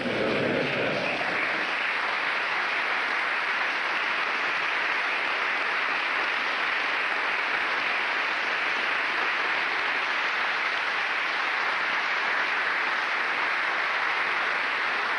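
Sustained applause from a large seated audience, steady and even throughout.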